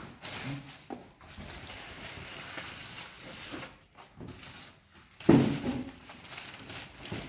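Plastic and foam packing rustling and crinkling as a flat-screen television is unpacked from its cardboard box, with a short, loud bump about five seconds in.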